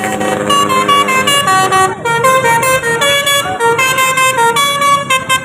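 Bus 'basuri' telolet musical horn playing a tune: a held chord for about the first second, then a quick run of short notes stepping up and down in pitch.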